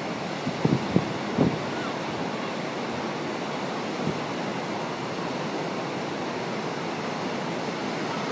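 Atlantic surf breaking and washing over rocks, a steady rush. Wind buffets the microphone in a few low thumps about a second in.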